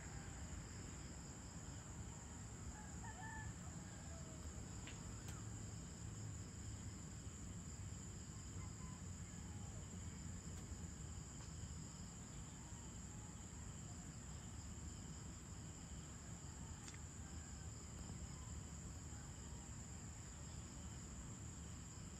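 Steady high-pitched chorus of crickets and other insects, faint, with a rooster crowing a few seconds in and scattered faint bird calls.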